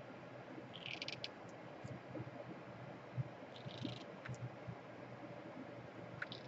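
Faint handling sounds at a repair bench: two short scratchy rustles, about a second in and about four seconds in, and a few light clicks, over a low steady hum.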